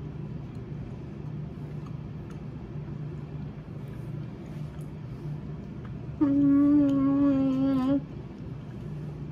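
A woman hums one long closed-mouth 'mmm' while eating, starting about six seconds in and lasting under two seconds, held on one pitch and sagging slightly at the end. Under it is a steady low background hum.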